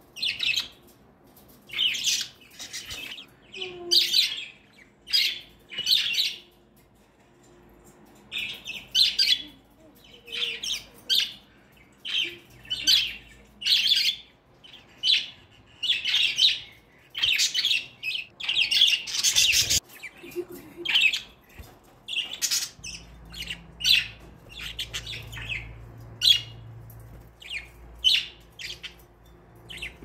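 Budgerigars calling in short, sharp chirps and squawks, coming irregularly about once a second with a brief lull partway through.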